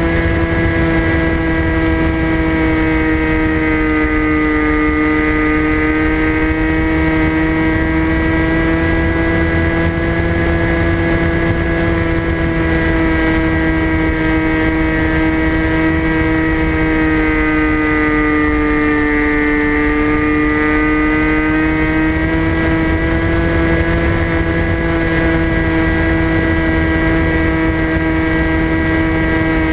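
Electric motor and propeller of a TBS Caipirinha FPV flying wing in flight, heard from the onboard camera: a steady whine that dips slightly in pitch twice as the throttle eases, over a low wind rumble.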